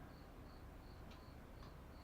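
A cricket chirping steadily, about three short high chirps a second, with two faint clicks about a second in and near the end.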